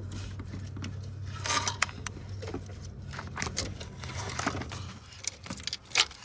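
Small clicks, scrapes and rattles of hands working the alternator's wiring connectors and plastic clips, with a sharp snap about six seconds in, over a steady low hum.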